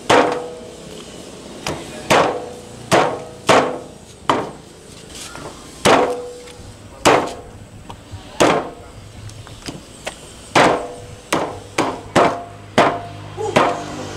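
A heavy knife chopping on a wooden cutting board, with irregular sharp strokes about once a second that come quicker near the end. Each stroke rings briefly.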